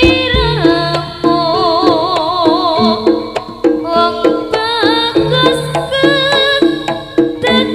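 Javanese jaranan music: a steady pattern of drums and pitched percussion with a wavering melody line above it.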